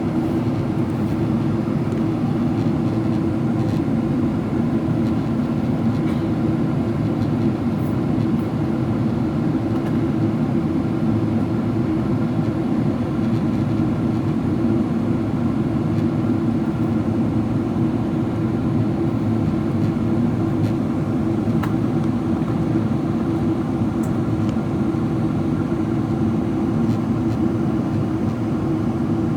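Steady cabin roar inside a Boeing 777-300ER in descent: airflow and the General Electric GE90 engines, an even low rumble that holds level throughout.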